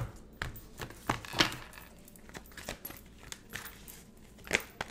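Tarot cards being shuffled by hand: irregular soft clicks and snaps of the cards, with a few louder ones about a second in and near the end.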